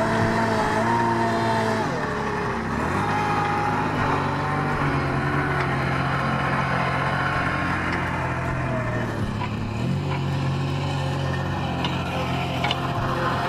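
Engine of a red tractor backhoe loader running while it digs, its speed dipping and picking up again about two seconds in and rising about ten seconds in.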